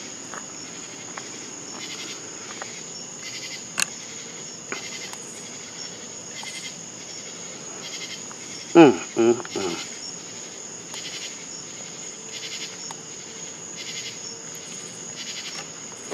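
Crickets chirping: a steady high trill with regular pulses. A short voice breaks in about nine seconds in and is the loudest sound, with one sharp click a few seconds earlier.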